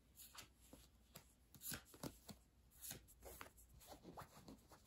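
Tarot cards being handled and laid down on a cloth: faint, irregular soft slides and light taps of card on card.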